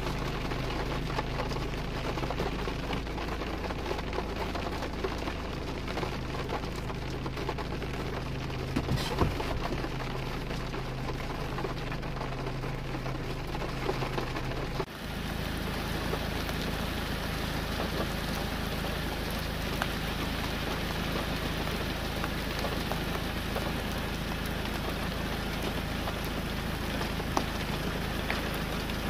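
Heavy rain pattering steadily on a window, with a steady low hum underneath. About fifteen seconds in it cuts to rain falling in the open, a brighter steady hiss with occasional sharp ticks.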